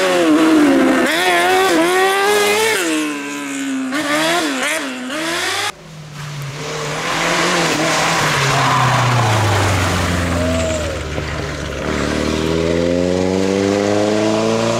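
A kartcross buggy's motorcycle-type engine revving high, its pitch rising and falling quickly with throttle and gear changes. About six seconds in it gives way to a SEAT León rally car's engine, which drops steadily in pitch off the throttle, then rises again as the car accelerates away.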